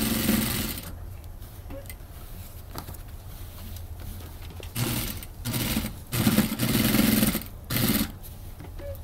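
Industrial single-needle lockstitch sewing machine stitching through six layers of denim in short runs. One run ends about a second in, and after a pause of about four seconds come four quick runs, one after another.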